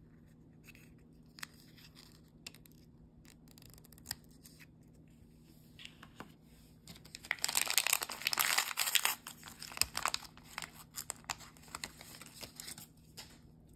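A small crinkly plastic wrapper from a Zuru Mini Brands Books capsule being torn open and crinkled between the fingers, loudest about seven to ten seconds in, then scattered crinkles. Before that, a few light taps and clicks as a miniature book is handled and set down.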